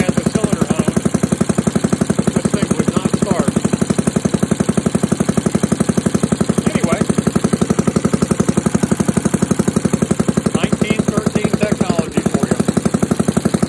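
1913 Evinrude rowboat motor's single-cylinder two-stroke engine running steadily at a fast, even firing beat on buzz-coil ignition, now firing reliably on its newly made piston ring.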